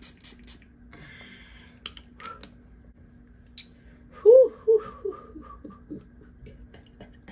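Setting-spray pump bottle spritzing in quick short bursts, about five a second, which stop about half a second in. About four seconds in there are a few short vocal sounds from the user, the loudest sound here.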